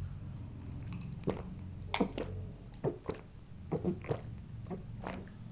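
A man gulping down a drink from a glass mug, close to the microphone. There are about ten wet swallowing gulps, roughly two a second, starting about a second in.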